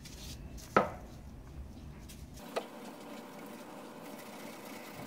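One sharp knock less than a second in. From about halfway there is a faint, steady rubbing: fine steel wool scrubbing rust off the steel blade of an old drawknife.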